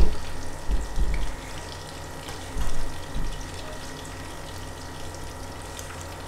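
Chicken pieces deep-frying in hot oil in a wok: a steady bubbling hiss, with a few dull bumps in the first few seconds.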